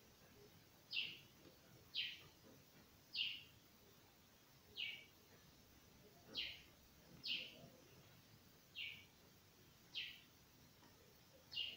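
A bird repeating a short, faint chirp that falls in pitch, about nine times at uneven gaps of one to one and a half seconds.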